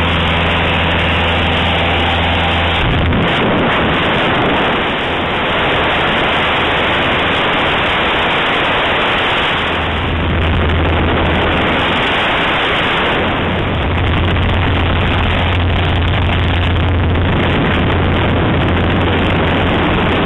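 Cabin noise of a Cessna 152 in cruise: the four-cylinder Lycoming engine's steady drone mixed with loud rushing air over the airframe. The low engine drone drops back about three seconds in and comes up strongly again around the middle and for the last several seconds.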